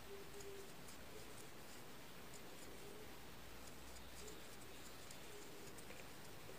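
Faint scratching and scattered light ticks of a wooden crochet hook drawing cotton thread through crocheted lace, working slip stitches to join motifs.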